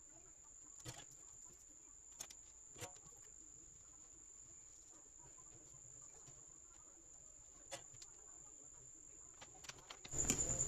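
Faint steady high-pitched whine with a few scattered light clicks, like small parts being handled on a work surface. Near the end a louder rapid pulsing starts.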